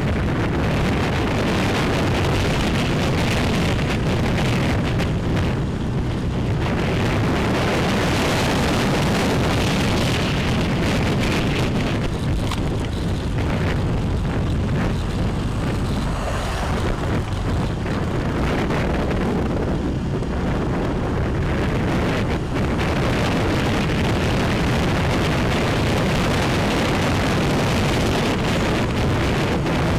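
Steady wind rush over the microphone of a camera on a moving motorbike, with the bike's engine and tyre noise underneath.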